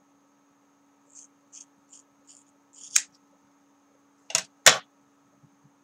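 Scissors snipping through a small tail of hair: a run of quick light snips, then a sharper click and two louder snaps near the end.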